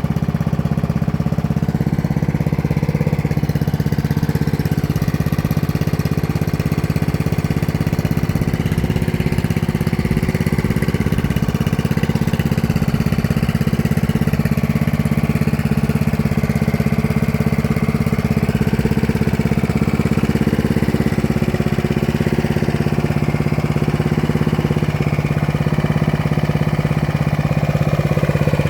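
Lawn mower's small engine running steadily at a constant speed.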